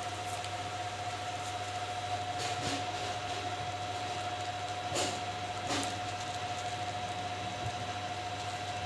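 A steady low hum with a thin steady whine above it, and a few faint soft rubbing sounds about two and a half and five seconds in.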